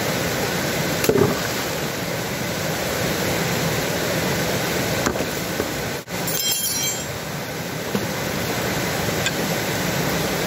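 Creek water rushing steadily over rocks, with a few knocks as stones are shifted by hand at the water's edge. A brief high ringing squeal sounds about six and a half seconds in.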